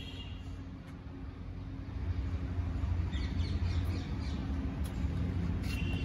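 Outdoor background noise: a low rumble that gets louder about two seconds in, with a few faint, short high chirps.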